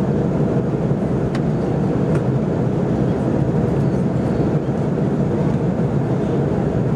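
Jet airliner cabin noise in cruise flight: a steady, even, low rush of airflow and engines.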